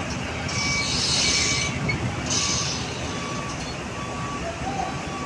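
Heavy diesel truck running with its reversing alarm beeping, one short beep about every three-quarters of a second over the steady engine rumble, with a few bursts of hiss.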